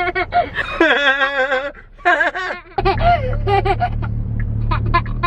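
Family members, children among them, making short, high-pitched playful vocal noises and copying one another, with a long wavering call about a second in. A steady low hum, likely a car's cabin, comes in about three seconds in.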